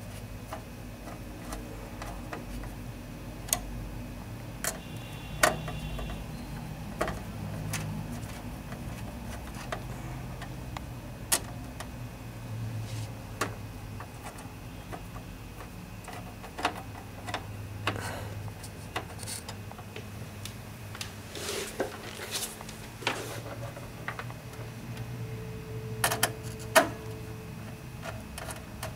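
Irregular light clicks and knocks of a screwdriver and screws as a motherboard is fastened into a steel PC case, over a low steady hum.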